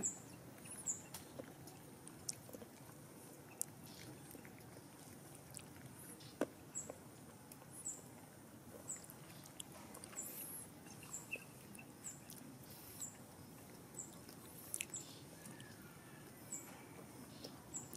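Quiet outdoor background with a short, very high chirp repeating about once a second, and scattered light clicks and taps from eating at a metal table.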